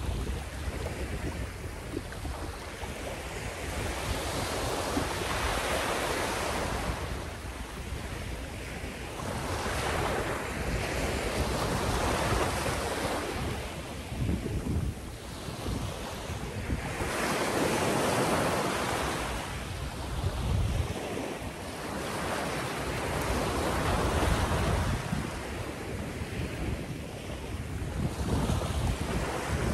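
Small ocean waves breaking and washing up the sand at the shoreline, swelling and falling back every five or six seconds, with wind rumbling on the microphone.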